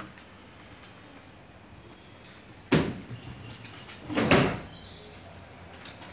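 Two knocks: a sharp one nearly three seconds in and a longer, heavier thud about a second and a half later.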